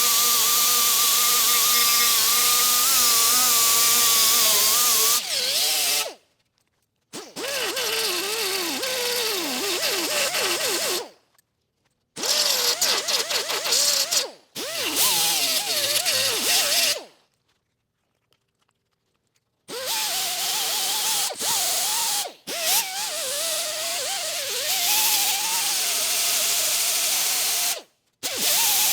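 Angle grinder grinding down welds on a steel door patch panel. Its whine dips and recovers as it bears on the metal, in several bursts that cut off suddenly.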